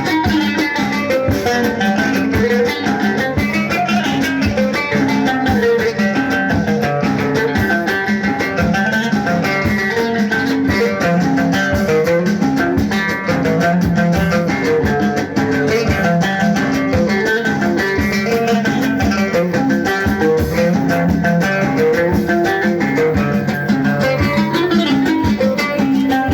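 Instrumental Moroccan chaabi music, led by a plucked string instrument over quick percussive strokes, at a steady level.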